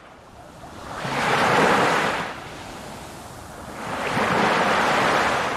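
Sea waves washing in: two swells of surf noise, the first about a second in and the second building near the end.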